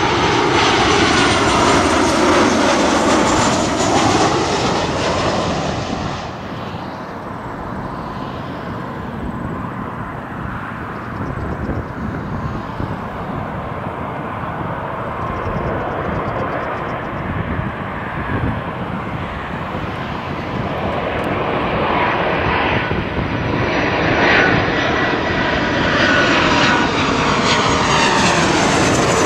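Jet airliners on landing approach passing low overhead. A twin-jet's engines are loud at first, their whine falling in pitch as it goes by and fading after about five seconds. Then an Airbus A330 grows steadily louder as it comes in and passes overhead near the end.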